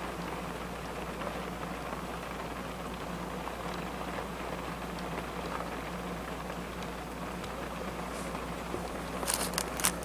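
Steady patter of rain falling, with a low steady hum under it. About nine seconds in comes a quick run of sharp taps, the loudest moment.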